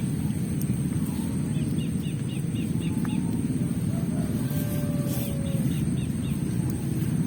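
A bird calling in two quick runs of about six short, high notes, one about a second and a half in and one about five seconds in, over a loud, steady low rumble.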